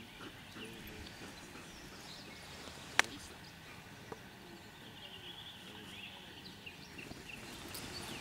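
Quiet outdoor background, broken by one sharp click about three seconds in.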